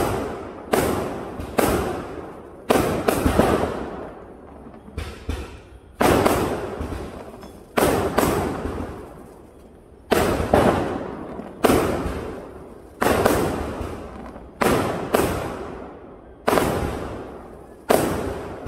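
Aerial firework shells bursting one after another, about fifteen loud bangs at uneven gaps of half a second to two seconds, each trailing off over a second or so.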